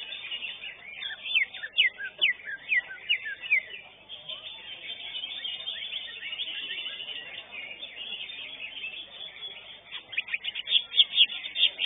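Cucak hijau (greater green leafbird) singing: a run of quick, sharp falling notes about a second in, then another fast burst near the end, over a steady haze of other birds' chatter.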